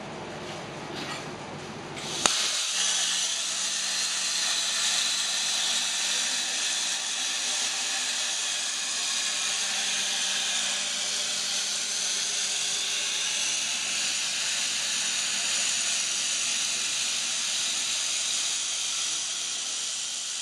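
Plasma torch of a CNC pipe cutting machine cutting a steel pipe: a sharp crack about two seconds in as the arc strikes, then a steady hiss with a faint low hum underneath.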